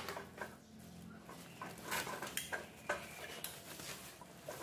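Air compressor and its electric drive motor running with a steady low hum, over scattered light metallic clinks and knocks.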